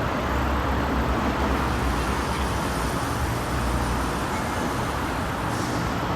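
Steady road traffic noise: an even rumble and hiss with no single vehicle standing out.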